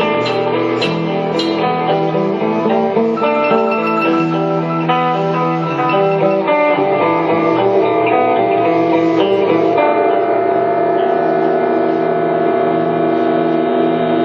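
Live instrumental music led by a keyboard, notes and chords changing, then settling about ten seconds in on a long held chord.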